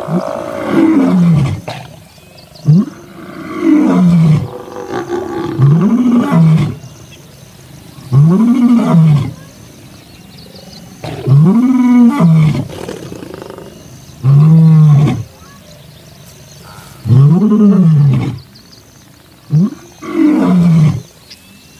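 Male lion roaring: a bout of about nine deep calls, each about a second long, rising then falling in pitch, two to three seconds apart. He is roaring to restore calm in a squabbling pride.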